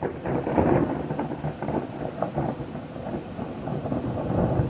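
Thunder from a lightning strike about 2.7 km away, arriving 8 seconds after the flash: it starts suddenly and rolls on as a continuous deep rumble.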